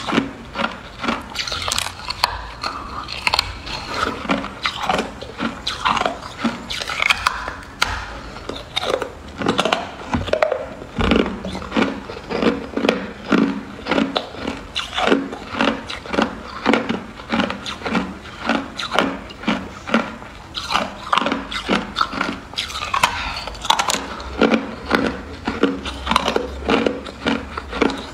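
Hard clear ice being bitten and chewed, a steady run of sharp crunches and cracks, two or three a second.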